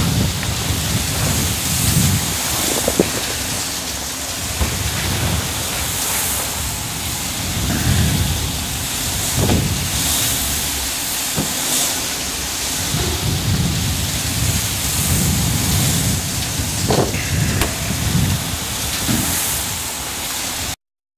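Sandstorm wind and blown sand hissing against an aircraft's fuselage, with repeated low rumbling surges and a few sharp knocks. It cuts off suddenly near the end.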